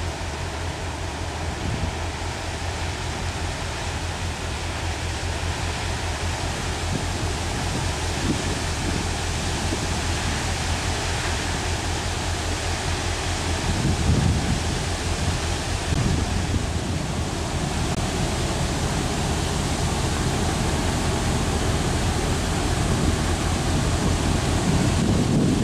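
Diesel engine of a passing general cargo ship: a low, steady, pulsing drone that grows slowly louder as the ship draws nearer. Wind rushes over the microphone throughout, with gusts about 14 seconds in and near the end.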